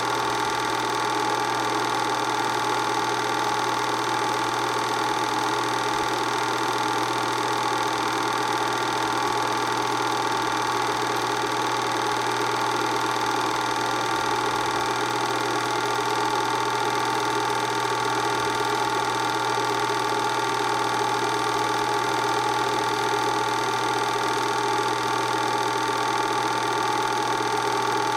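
Film projector running steadily: a continuous motor hum with mechanical clatter, unchanging throughout.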